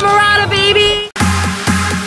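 Electronic dance music: a high melody line plays over the track with the bass dropped out, then cuts off sharply just after a second in before the beat and bass come back in.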